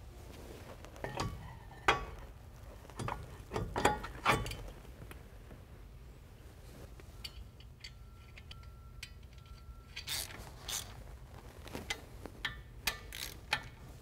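Scattered metal clinks and knocks as a Wilwood four-piston brake caliper is slid onto its shimmed mounting studs, then a run of quick clicking ticks as a wrench starts on the caliper mounting nuts.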